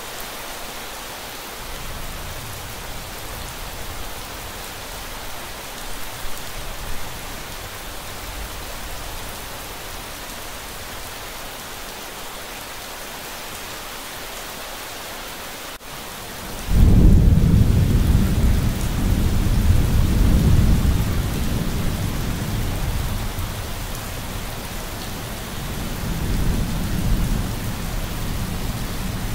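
Steady rain with thunder. Faint distant rumbles come early on, then about two-thirds of the way through a loud thunderclap breaks in suddenly and rumbles on for several seconds, swelling again near the end.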